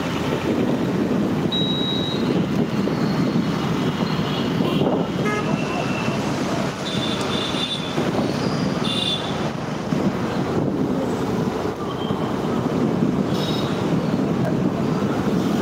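Steady wind and road rumble from riding a two-wheeler through town traffic, with short high-pitched toots from traffic several times.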